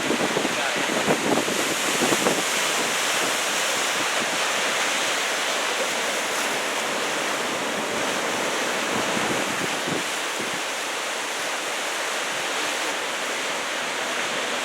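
Steady rush of heavy ocean surf from a large typhoon swell, with wind buffeting the microphone, most strongly in the first couple of seconds.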